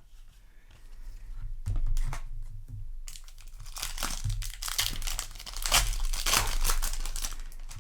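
Plastic-foil booster pack wrapper crinkling and rustling as it is handled, in irregular bursts that grow busier in the second half.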